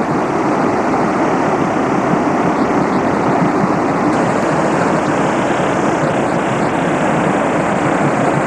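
Steady, loud rush of water released from the Oker dam's outlets, pouring down the concrete face and churning white in the basin at its foot: a high discharge, with the reservoir close to overflowing.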